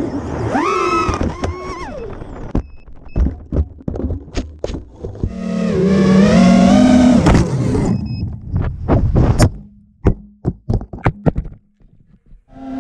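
5-inch FPV quadcopter motors whining, their pitch rising and falling with throttle, broken up by a run of sharp knocks and thumps as the quad hits things and tumbles in a crash. The motors surge loudest about halfway through, then more knocks follow and it drops to near silence near the end.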